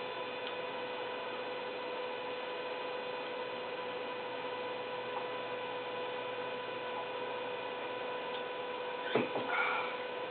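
Steady electrical hum with a thin whine in two tones, one about twice the pitch of the other. About nine seconds in there is one sharp knock, followed by a brief louder sound lasting under a second.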